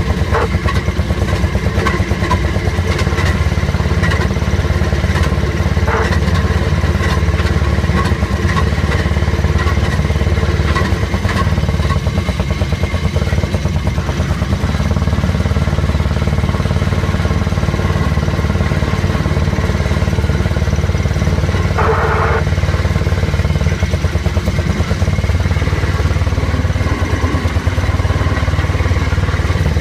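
Southern Railway M9 speeder (rail motorcar) running steadily down the track, its small engine running evenly under a light clatter of the wheels on the rails. A brief higher-pitched sound comes a little after three-quarters of the way through.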